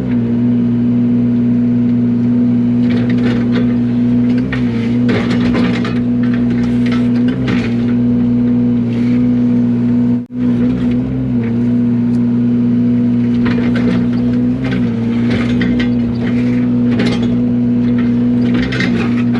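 Yanmar mini excavator's diesel engine running steadily, its pitch sagging slightly now and then under hydraulic load, with bursts of scraping and crunching as the bucket works material. The sound drops out for a moment about halfway through.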